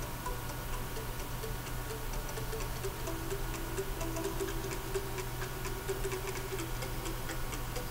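A faint, quick ticking at several ticks a second over a steady low hum.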